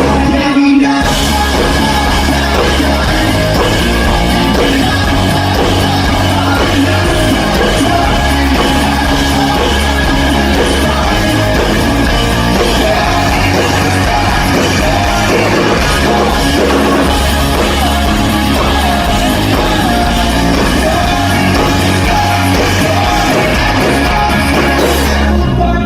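A rock band playing live and loud through a stage PA during a sound check, with a heavy bass and drum low end, guitars and a singing voice. The music breaks off briefly about a second in and again near the end.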